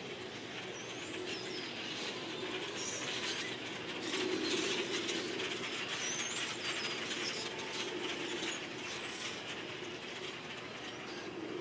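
Shallow stream water running and rippling steadily over stones, swelling slightly about four seconds in, with short high bird chirps now and then in the first part.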